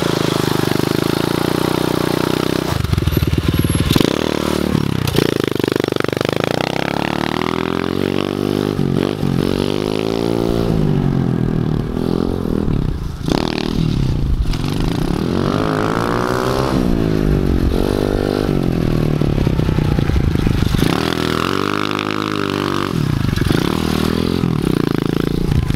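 Polini 110 pit bike engine being ridden hard, revving up and dropping back again and again, its pitch rising and falling with each burst of throttle.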